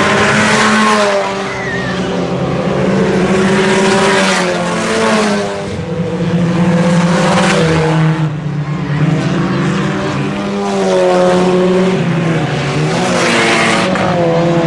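IMCA sport compact race cars' four-cylinder engines racing around a dirt oval, revving up and easing off through the turns. The engine pitch rises and falls over and over, and the sound swells every few seconds as the pack goes by.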